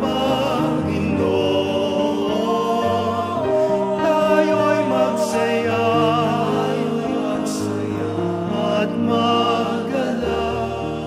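A worship song sung by a choir with instrumental backing, held notes with vibrato over steady chords; it begins to fade near the end.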